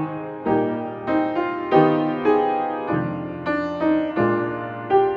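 Background music: a piano plays a melody of struck notes that start sharply and fade, a new note about every half second.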